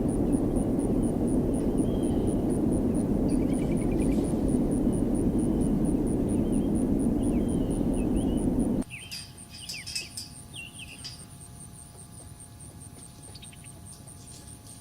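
Outdoor rural ambience: an insect chirping at a steady rate of about four chirps a second, with scattered bird chirps. For the first nine seconds a loud low rushing noise lies over it, then stops abruptly.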